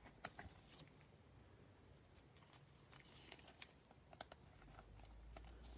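Faint, irregular clicks and ticks of glossy chromium trading cards being flipped and slid against each other in a stack by gloved hands.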